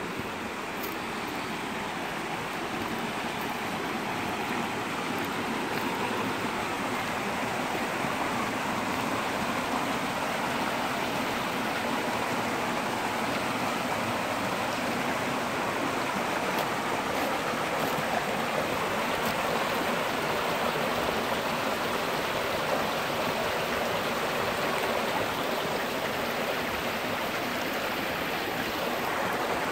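Shallow rocky creek splashing over small cascades: a steady rush of running water, growing a little louder over the first few seconds.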